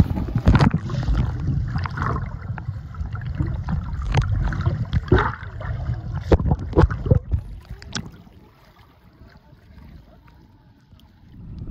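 Water splashing and sloshing around a camera held at the surface as snorkelers kick and dive, with many sharp splashes. About eight seconds in it drops to a quiet, dull low wash.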